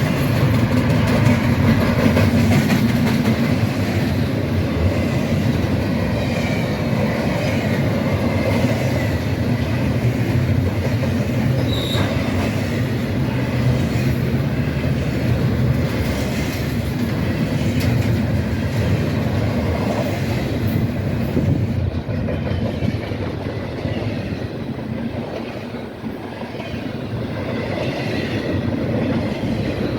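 Freight train rolling steadily past on the rails, cars running continuously, with a brief dip in level near the end before it picks up again.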